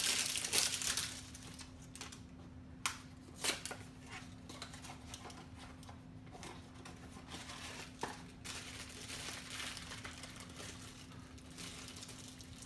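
Packaging of a Funko Mystery Minis blind box crinkling and tearing as it is opened, busiest in the first second, followed by a few light clicks of handling. A faint steady hum runs underneath.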